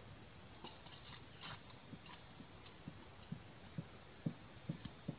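Insects droning steadily at a high pitch, with soft, irregular squelches and scrapes of hands digging in wet mangrove mud.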